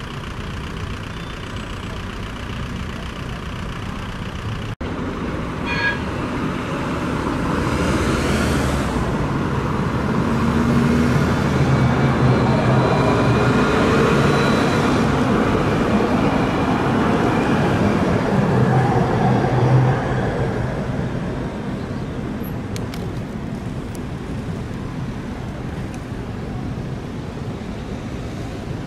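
An Alstom Citadis 403 tram passes close by, its running growing louder over several seconds with a faint gliding whine. It fades back to steady street noise in the second half.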